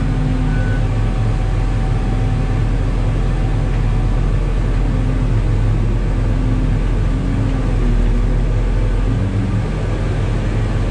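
New Holland RG140B motor grader's diesel engine running steadily.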